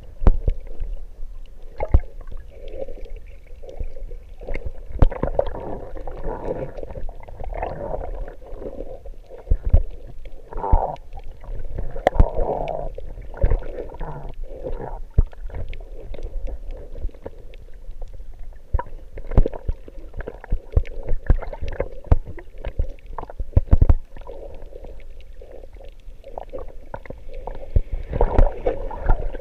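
Muffled underwater sound picked up by a submerged camera: water rumbling and gurgling, with many short sharp knocks scattered throughout.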